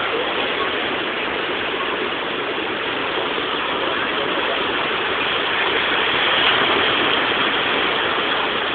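Steady rushing of sea surf breaking on a stony beach, swelling slightly partway through.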